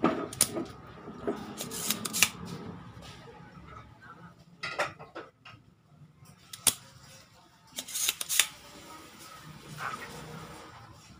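Spring-loaded desoldering pump (solder sucker) snapping as its plunger is released over the pins of a vertical IC on a CRT TV circuit board. There are several sharp clicks spaced a second or more apart, with a loud one right at the start.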